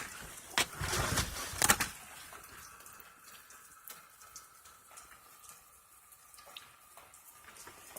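Rustling and knocking from handling the generator and its panel for the first couple of seconds, then a faint steady trickling hiss with a few small clicks.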